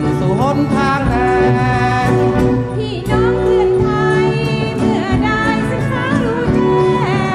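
Music: a wavering melody over sustained low accompaniment.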